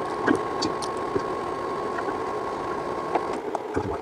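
Light clicks and taps of small parts being handled and fitted onto a bike headlight's housing, over a steady background hum. A thin whine in the hum cuts off about three seconds in.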